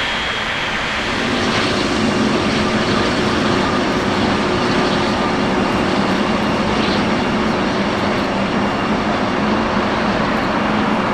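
Jet airliner engines running, a steady wide noise with a low hum in it, growing louder about a second in.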